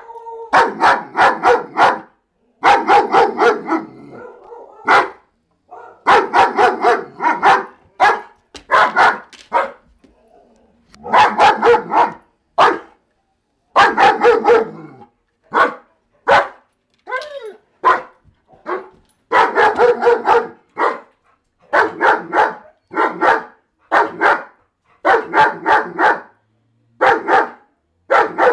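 A German Shepherd barking as an alarm, in rapid volleys of several loud barks with short pauses between them.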